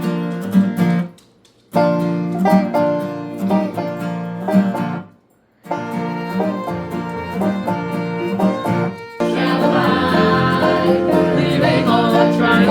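Background music led by plucked strings, with a steady rhythm. It breaks off briefly twice and becomes fuller from about nine seconds in.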